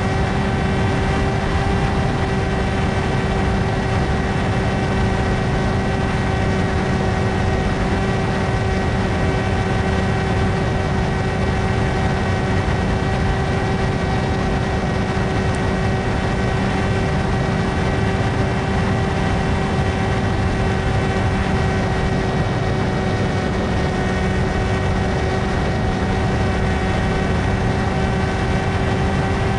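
Electric motor and propeller of an s800 FPV flying wing running at a steady throttle: a constant whine at several pitches over an even rushing noise.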